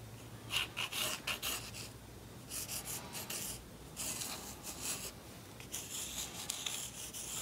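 Mechanical pencil sketching on thin cardboard: quick scratchy strokes in four bursts with short pauses between them.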